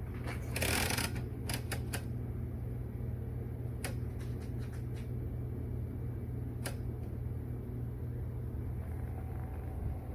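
Keys of a Royal 79101T manual typewriter striking irregularly: a quick run of clacks in the first second or so, then a few scattered single strikes, over a steady low hum.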